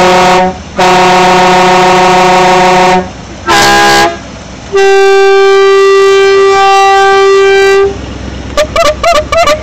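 Several horns fitted to a novelty antique-style car blowing in turn. First come two long blasts of one loud horn, then a short blast at another pitch, then a long, steady blast of a different horn that shifts pitch slightly about two-thirds of the way through. A few short, broken sounds follow near the end.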